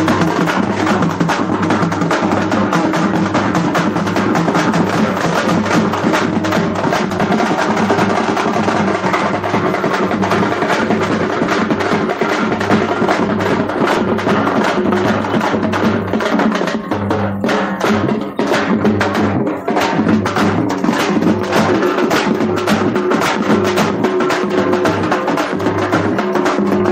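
Loud, drum-heavy festival procession music: a fast, dense drum beat over a bass that pulses in a steady rhythm.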